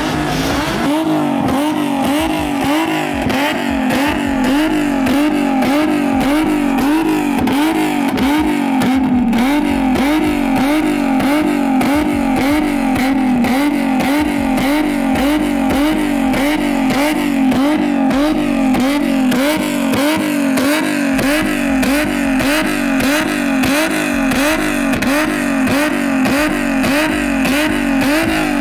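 Nissan 370Z's 3.7-litre V6 running through a large aftermarket exhaust, its note held steady but dipping and rising in pitch about one and a half times a second.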